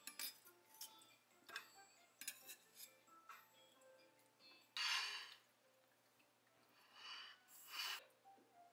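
Quiet kitchen handling sounds as an orange is cut with a knife on a wooden cutting board and the wedges are set on a ceramic plate. There are light knife taps and clinks, then a few short scraping sounds, the loudest about five seconds in. Soft background music plays underneath.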